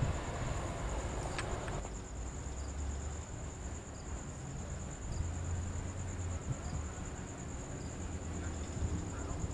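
A cricket trilling steadily at a high pitch, a fast even pulsing that never breaks, over a low, distant rumble.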